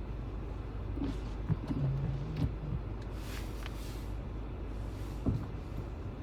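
Steady low rumble of a car's engine and tyres heard from inside the cabin while driving slowly on snowy roads, with a brief hiss about three seconds in.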